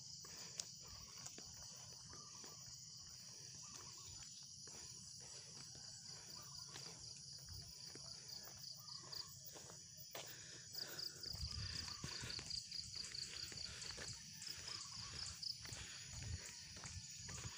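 Steady high-pitched insect chorus, with a pulsing chirp joining a little past halfway. A jogger's footsteps and phone-handling knocks sound over it and grow louder in the second half.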